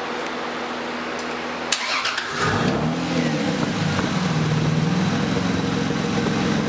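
A car engine is cranked and starts about two seconds in, rises and falls in revs briefly, then settles into a steady idle. Before it starts there is a steady hiss.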